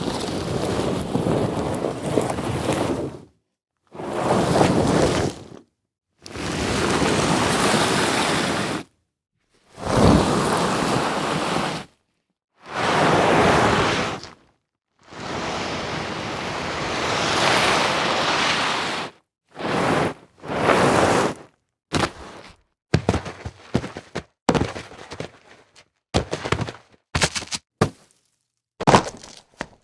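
Library impact sound effects played one after another with silent gaps: six longer noisy crashes of two to three seconds each, then from about two-thirds of the way in a run of short, sharp hits and thuds.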